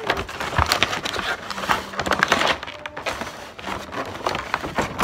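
A brown paper bag rustling and crackling as it is handled and rummaged through, a busy run of quick crinkles and small clicks.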